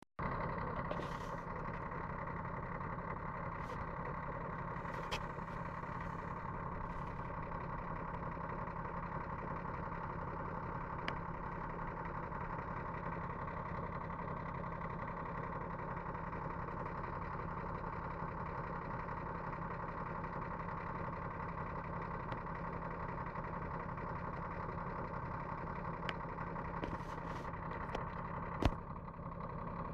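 A steady mechanical hum that holds unchanged throughout, with a few faint clicks and one sharp knock near the end.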